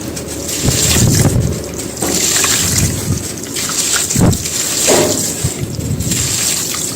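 Sand-cement pieces crumbling, a steady grainy crackle of breaking grit with several louder crunches spread through.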